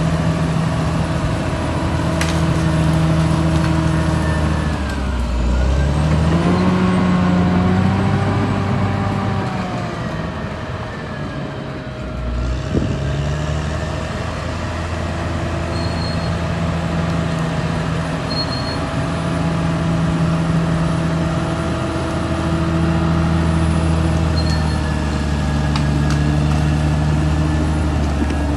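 Caterpillar D6R XL bulldozer's diesel engine working under changing load. Its pitch climbs about six seconds in, eases off for a moment around ten to twelve seconds, then settles back to a steady working note, with a thin steady whine underneath throughout.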